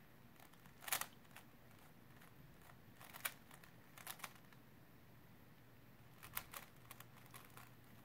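Faint, irregular clicks and short clatters of a Rubik's cube's layers being turned during a speed solve, a click or small cluster every second or so.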